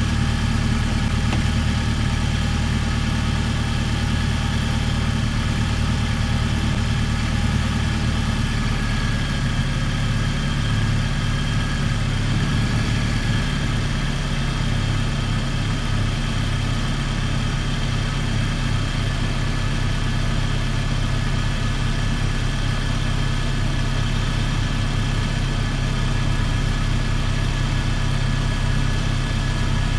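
Car engine idling steadily, heard from beside the open engine bay; its note shifts about ten seconds in as electrical loads are switched on for an alternator output test.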